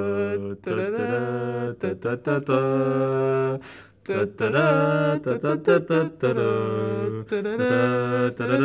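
Wordless a cappella singing: a voice holds notes of about a second each, sliding between pitches, with short breaks and one brief pause about four seconds in.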